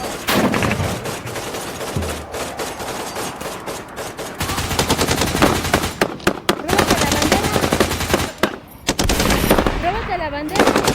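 Nerf blasters firing in rapid bursts, a dense run of sharp clicking shots with a short break about two-thirds of the way in.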